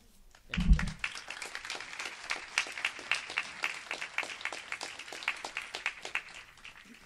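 Audience applauding, starting about half a second in and dying away near the end, with a low thump just as it begins.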